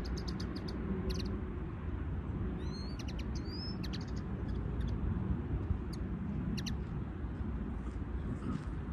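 Small songbirds giving scattered short, high chirps, with two sliding whistled notes about three seconds in. A steady low background rumble runs underneath.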